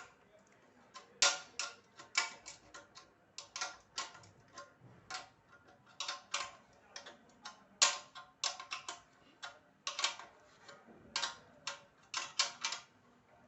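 Irregular clicks, clacks and knocks of parts and tools being handled and fitted while a Singer sewing machine is assembled, some sharper and louder than others, with no steady rhythm.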